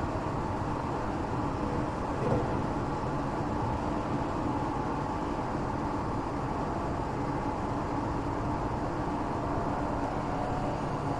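Interior running noise of a Tokyo Metro 8000 series train car: a steady rumble of wheels on rail and running gear, with faint motor whine tones that drift lower in pitch near the end. A brief clunk sounds about two seconds in.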